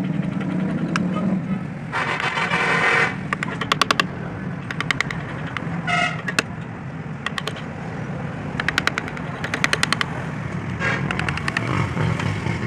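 Hand wood-carving chisel working a relief panel in short strokes, giving several quick runs of sharp ticks. Under them runs a steady low hum of traffic, with a brief high tone about halfway through.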